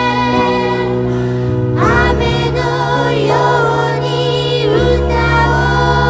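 A song: sustained instrumental chords, with a woman's voice coming in about two seconds in and singing a held, wavering melody over them.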